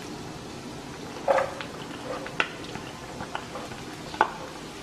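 Diced vegetables pushed off a plate into a frying pan with a wooden spatula: a few sharp knocks and clicks of spatula against plate and pan, the loudest about a second in and another near the end, over a steady faint sizzle of garlic frying in oil.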